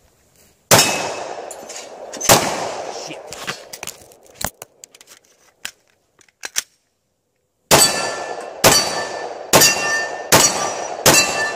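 Glock 20 10mm pistol fired: two shots about a second and a half apart near the start, then after a pause five more at roughly one a second. Steel plate targets ring after the hits.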